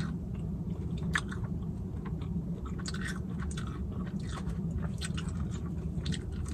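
A person chewing food close to the microphone, with irregular wet mouth clicks and smacks over a steady low hum.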